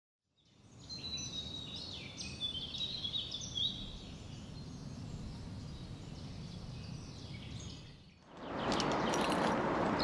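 Birds chirping over a low outdoor rumble; about eight seconds in this gives way to a louder, steady rustling noise with scattered clicks.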